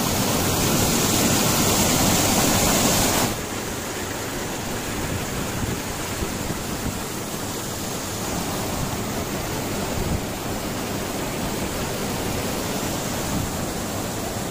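Water spilling over a low concrete weir across a river: a steady rushing that is loudest for about the first three seconds, close to the falling water, then drops to a softer, even rush.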